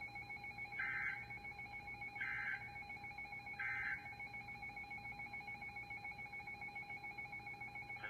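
Three short bursts of warbling digital data tones from NOAA Weather Radio station KEC58, about a second and a half apart: the SAME end-of-message code that closes an alert broadcast, here a severe thunderstorm warning. They play over a faint steady hum.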